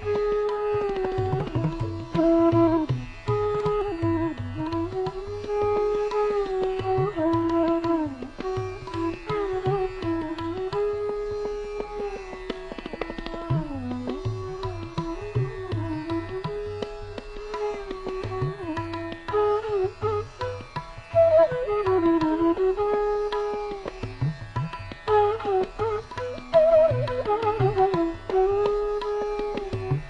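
Background instrumental music in Indian classical style: one melody line with smooth sliding pitch bends over steady hand-drum strokes.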